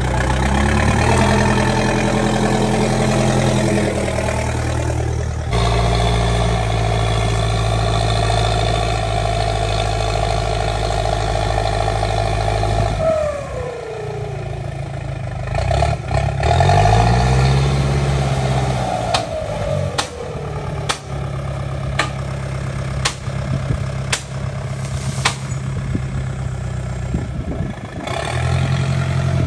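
LiuGong backhoe loader's diesel engine running while it works, its note rising and falling once a little past halfway. A series of sharp knocks comes in the later part.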